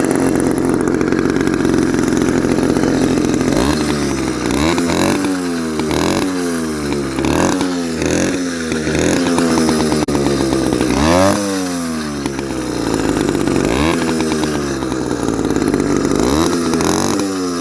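49cc two-stroke motorised-bicycle engine running, steady for the first few seconds, then revved up and down over and over in quick throttle blips.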